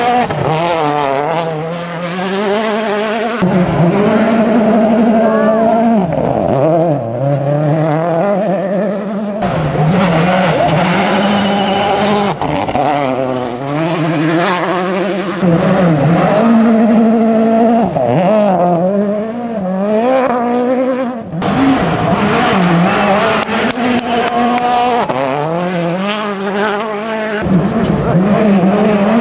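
Several World Rally Cars passing one after another on gravel, in a string of short clips. Their 1.6-litre turbocharged four-cylinder engines rev hard, with the pitch climbing and dropping through quick gear changes, and loose gravel sprays from the tyres.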